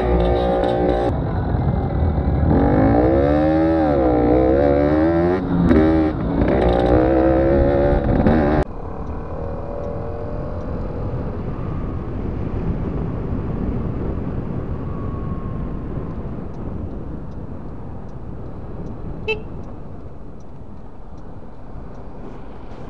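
A loud, wavering pitched sound that bends up and down for the first several seconds, then stops abruptly. After that comes the steady wind and road noise of a scooter cruising along a road, with a short click near the end.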